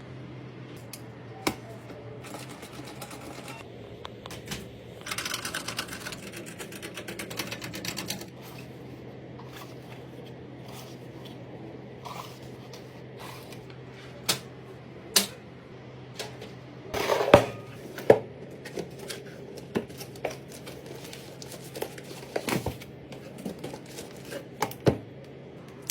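Hands handling computer parts: scattered sharp clicks and knocks, with a few seconds of rustling about five seconds in and a louder cluster of knocks a little past halfway, over a steady low hum.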